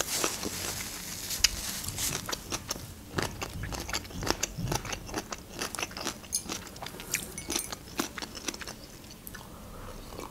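Close-up mouth sounds of a person chewing a mouthful of food: irregular soft wet clicks and smacks, thinning out near the end as she sips from a mug.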